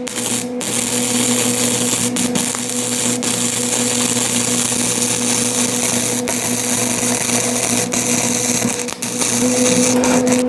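Electric arc welding: a steady, loud crackling buzz of the arc, starting about half a second in and broken briefly a few times as the bead is stopped and restarted. A steady hum runs underneath.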